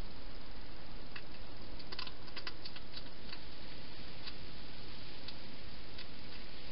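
European hedgehog chewing food from a bowl: sharp little clicks, a quick cluster about two to three and a half seconds in, then one every second or so, over a steady hiss.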